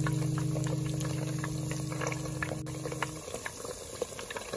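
Eggs frying in deep hot oil, a steady sizzle with many small sharp pops and crackles. A held note of background music sounds over it and stops about three seconds in.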